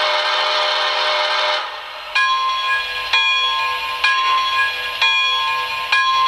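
Lionel RailSounds steam whistle on a Pere Marquette Berkshire O gauge locomotive, blowing one long blast that stops about a second and a half in. After it the locomotive bell starts ringing about once a second while the model stands.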